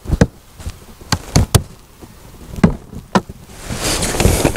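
A series of sharp knocks and taps as fishing tackle is handled against a plastic kayak, ending in a rustling hiss in the last second.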